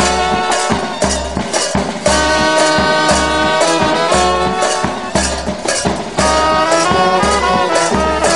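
School marching band playing: brass instruments carrying a tune over drums keeping a steady marching beat.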